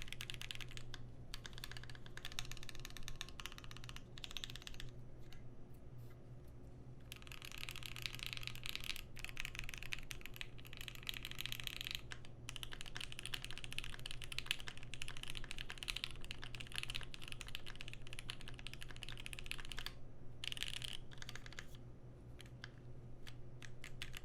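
Continuous typing on a Keychron Q1 aluminium-plate mechanical keyboard fitted with lubed and filmed Pinoko switches and GMK keycaps, its case filled with Poly-Fil for a sound test. The clacking comes in fast runs, with thinner stretches about five seconds in and again near the end, over a steady low hum.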